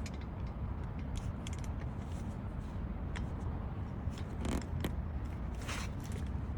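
Hand tools and brake parts being handled during a brake job: scattered light metal clicks and two short scraping swishes, over a steady low background rumble.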